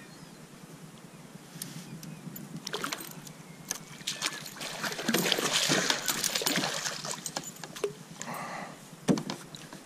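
Water splashing and sloshing at the side of a canoe as a lake trout is handled and unhooked in a landing net, loudest for about two seconds in the middle, with scattered light clicks and a sharp knock near the end.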